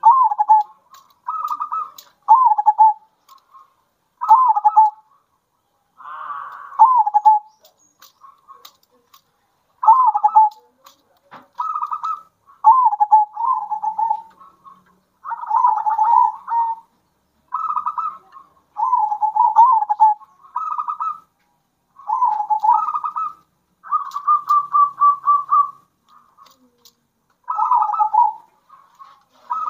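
Zebra doves (perkutut) cooing: short phrases of coos follow one another every second or two, and a few run into a quick trill.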